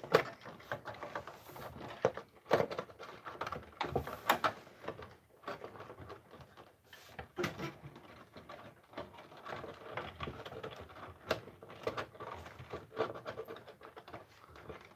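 Irregular clicks, knocks and scraping from a TV replacement speaker being handled and pushed into place inside the set, which it does not fit well.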